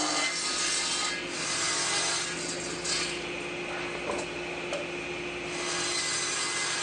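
Table saw running and cutting through a glued-up oak board, the cut noise over a steady motor hum, swelling, easing in the middle and swelling again near the end.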